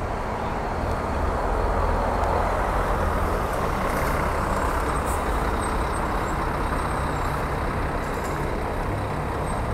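Intercity coach's diesel engine running as the bus drives slowly past at close range and pulls away. The sound swells over the first couple of seconds as it goes by, then settles into a steady rumble.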